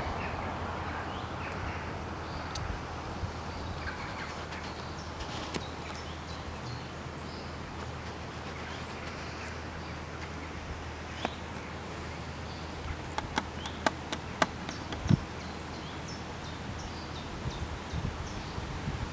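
Outdoor ambience: faint bird chirps over a steady low hum, with a run of sharp clicks about thirteen to fifteen seconds in.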